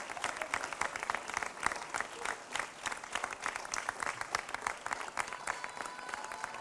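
Applause from an audience and the performers on stage: many hands clapping in a dense, steady patter.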